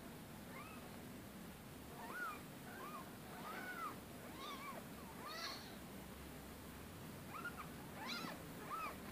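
Newborn kittens mewing, a dozen or so short, high-pitched cries, while they are rubbed dry with a towel.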